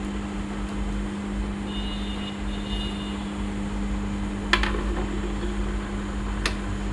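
Steady electric machine hum, with two sharp metallic clicks about two seconds apart past the middle, as parts of a Juki heavy-duty industrial sewing machine's mechanism are handled and adjusted.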